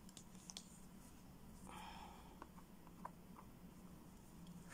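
Near silence: faint rustles and a few light ticks of hands handling yarn and a crocheted plush doll's head, over a low steady hum.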